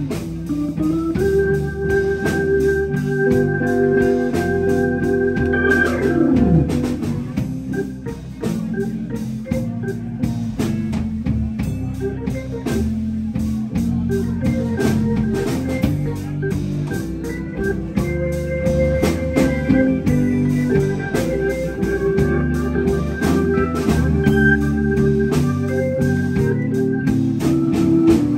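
Blues band playing: an Alesis Vortex keytar set to an organ sound holds chords and lines over bass guitar and drums, with a falling pitch glide about six seconds in.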